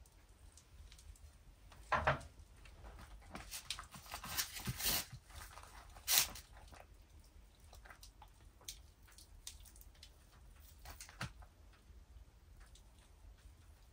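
Hands handling food and cookware while wrapping mini sausages in bacon: scattered light clicks and knocks over a low steady hum, with the sharpest knocks about two seconds in and about six seconds in.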